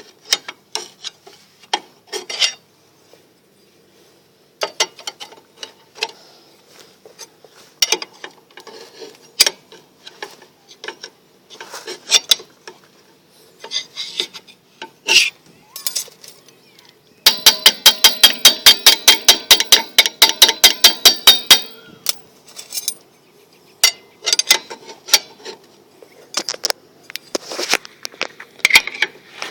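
Hand tools clinking and knocking on a steel brake drum and hub. About 17 seconds in, a ratchet wrench clicks rapidly and evenly for about four seconds as it turns the bolts that jack the drum off the hub.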